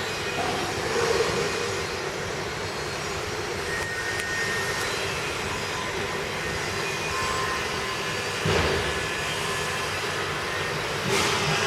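Electric powder grinding machine running with a steady whirring noise, with three brief louder surges.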